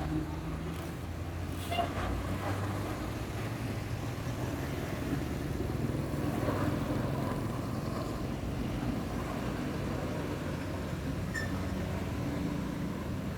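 Road traffic: vehicle engines rumbling steadily at a moderate level, with no horn sounding.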